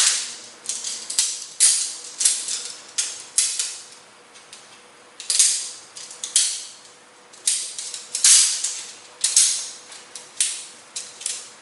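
Shock-corded aluminum tent pole sections clicking and rattling as they snap together, with sharp clicks every half second to a second and a short pause about four seconds in.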